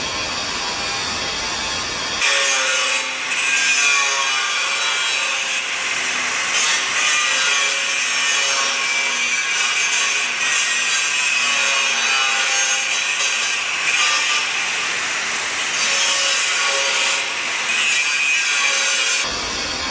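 Angle grinder grinding steel: a harsh, hissing rasp with a faint whine that rises and falls in loudness. It cuts in abruptly about two seconds in, replacing a low steady shop hum, and stops shortly before the end, when the hum returns.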